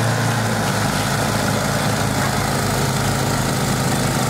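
Gas-engine snowblower running steadily while it throws a stream of snow.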